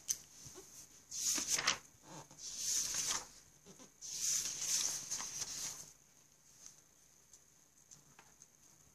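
Paper pages of a workbook being turned and smoothed by hand: three rustling bursts in the first six seconds, the longest about four seconds in, then only small light taps.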